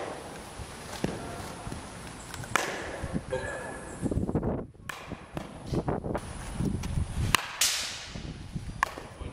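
A baseball bat striking pitched balls in a batting cage: sharp single cracks about two and a half seconds in and again near seven and a half seconds, with another knock just before the end.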